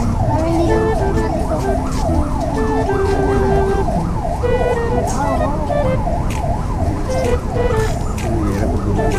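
Emergency vehicle siren sounding a fast up-and-down yelp, about two sweeps a second, over street noise.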